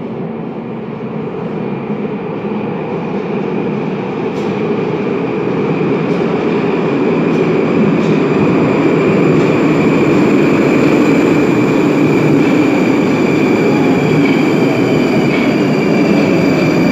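81-765 "Moskva" metro train running into the station: the rumble of its wheels and running gear grows steadily louder as it approaches and draws alongside, with a steady high whine over it and a second whine falling in pitch near the end as the train slows.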